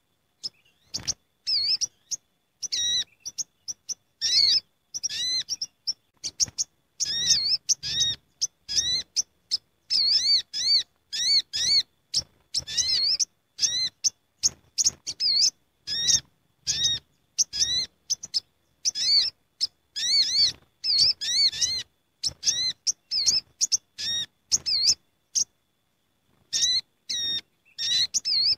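Olive-backed sunbirds calling noisily together: a busy run of short, high, arched chirps, several birds overlapping, broken by brief silences and a pause of about a second near the end.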